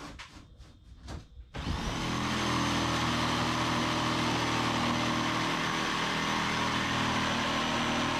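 An electric power tool's motor switches on about a second and a half in, spins up and runs steadily with a high whine.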